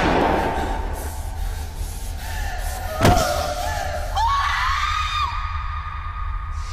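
A hard slam about three seconds in, amid a woman's frightened whimpering cries, over a steady low hum.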